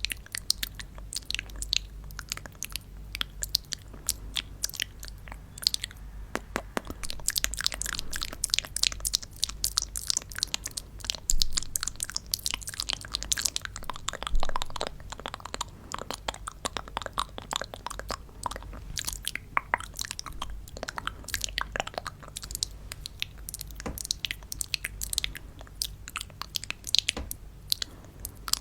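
Close-miked crisp crunching and crackling: many small, irregular sharp clicks in quick succession, with a few louder snaps about 11 and 14 seconds in.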